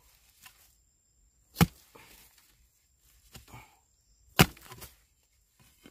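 Two sharp chopping strikes about three seconds apart, with faint rustling between them: a hand tool hacking at a bamboo shoot.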